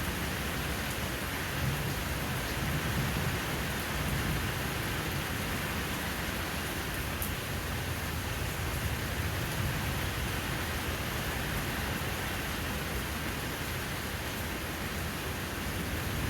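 Steady rain falling, an even hiss, with a low rumble swelling up twice in the first ten seconds or so.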